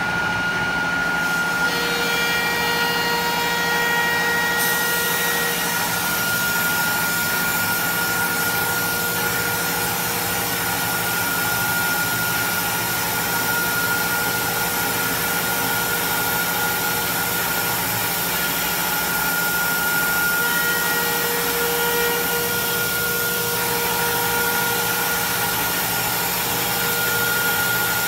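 AKM1325 CNC wood router's spindle milling a wooden board, a steady high whine over the noise of the cut.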